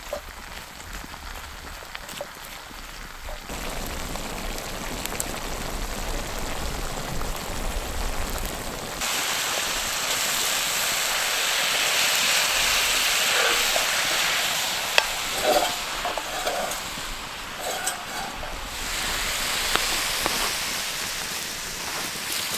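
Cabbage, mushrooms and apples sizzling in a cast iron pan over a campfire, a steady hiss that grows louder about nine seconds in. A few brief scrapes of stirring come near the middle.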